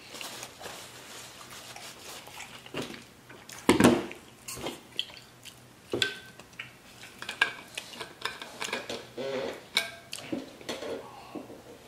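Table handling noises: a paper napkin rustles, then a red water bottle with a metal cap is picked up and unscrewed, with scattered knocks and clinks. A louder knock comes about four seconds in.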